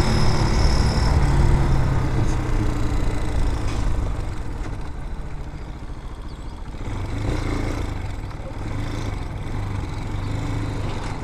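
Vitacci BSR Raven 250 dirt bike's 250cc air-cooled engine running while being ridden. It eases off about four seconds in and picks up again around seven seconds.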